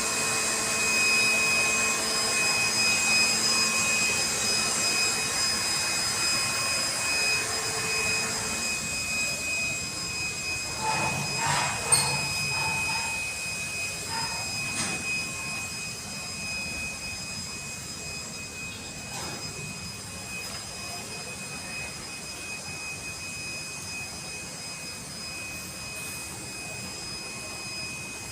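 A motor-driven machine running steadily, a rushing noise with a fixed high whine, slowly getting quieter. A few knocks and clicks come about halfway through.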